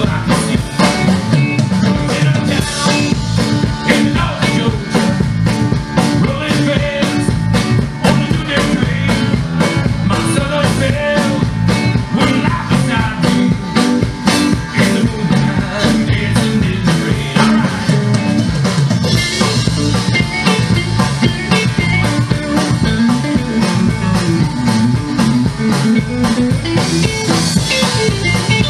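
Live band playing country rock through a PA: electric guitar, acoustic guitar, bass guitar and drum kit, with a steady drum beat.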